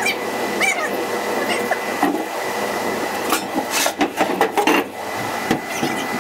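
A few knocks and clunks from handling tools and metal on the car body, over a steady shop hiss with a faint high-pitched tone.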